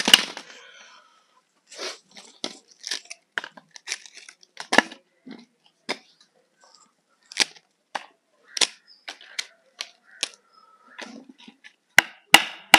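Pieces of dry firewood dropped onto a concrete floor with a clatter, then picked up and laid into a pile, giving a string of sharp wooden knocks and cracks.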